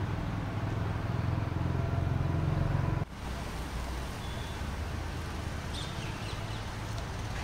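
Steady low outdoor rumble that drops off abruptly about three seconds in, with a few short, high bird chirps near the end.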